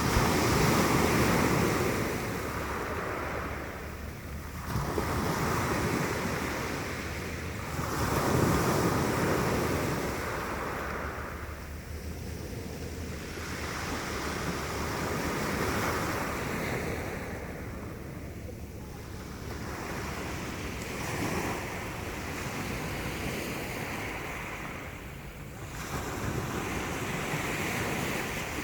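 Mediterranean sea waves washing onto the shore, surging and receding every few seconds. Wind rumbles on the microphone underneath.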